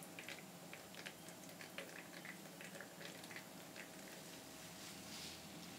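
Faint, irregular wet clicks and squelches from a cheesecloth bag of ground soybean pulp being squeezed by hand over a metal mesh strainer, pressing out soy milk. A soft rush comes near the end.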